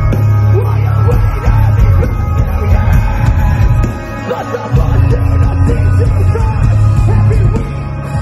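Metal band playing live and very loud: electric guitar over heavy bass and drums. The low end cuts out for about half a second near the middle, then the band comes back in.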